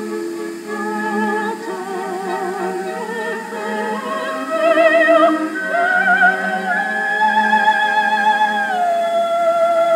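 Korean art song (gagok) sung in a classical, operatic style with wide vibrato over a sustained accompaniment. A long note is held from about seven seconds in, then steps down to a lower held note near the end.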